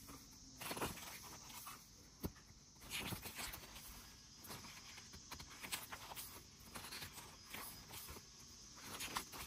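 Pages of a photo book being turned by hand: soft, faint paper rustles and page flips, with a few sharp clicks.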